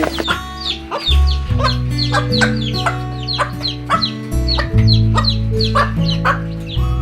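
Chickens clucking, short calls several times a second, over background music with sustained low notes.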